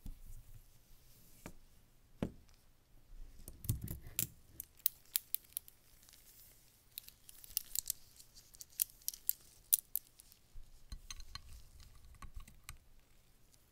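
A stainless steel link-bracelet watch handled in gloved hands: a long run of sharp metallic clicks and clinks from the bracelet links and clasp, then light clinks with a brief ringing near the end as the watch is set down on a glass scale platform.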